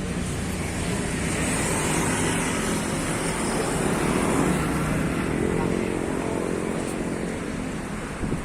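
Road traffic passing on a city street: a steady hum of motor vehicles, with one vehicle's engine growing louder toward the middle and then fading.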